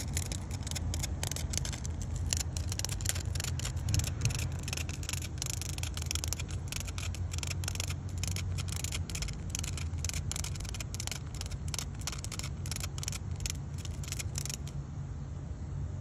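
A cicada stuck on its back buzzes and flutters its wings against concrete in irregular rapid bursts, trying to right itself; the buzzing stops near the end. A steady low rumble runs underneath.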